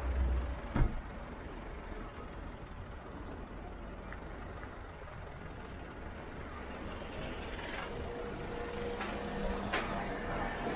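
Street traffic noise with a low vehicle rumble at first and one sharp knock about a second in. Near the end a steady engine hum builds as a motor scooter approaches.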